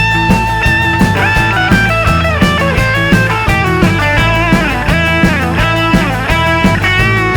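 Background rock music with electric guitar lines that bend in pitch, over a steady beat.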